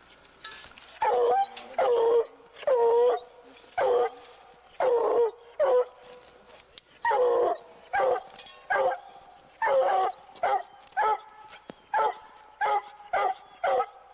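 Treeing Walker coonhound barking repeatedly: a few longer, drawn-out barks first, then shorter, quicker barks about twice a second.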